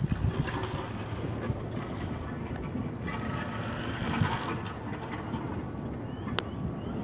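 Steady low rumble of wind in a storm, with a couple of faint clicks.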